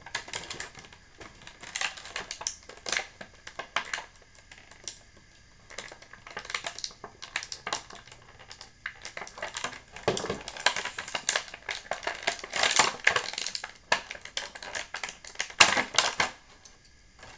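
Clear plastic blister packaging being handled, with irregular crinkles, rustles and sharp clicks, as a small action-figure part is worked free of it. The clicks and crinkles come thickest in the second half.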